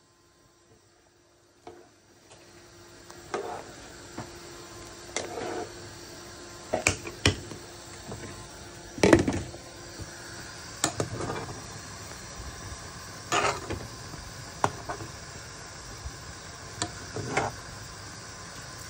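Pots boiling on a stovetop: a steady bubbling hiss under scattered clinks and knocks of a pot lid and a metal spoon against the pot, the loudest knock about halfway through. The first two seconds are near silent.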